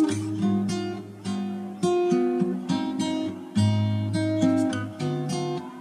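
Background music: an acoustic guitar tune of plucked notes and strummed chords, each struck sharply and dying away.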